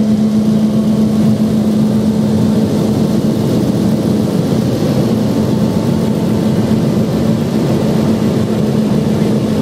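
Hydroelectric generating units running in a power station machine hall: a loud, steady machine hum with one strong steady tone over a low rumble.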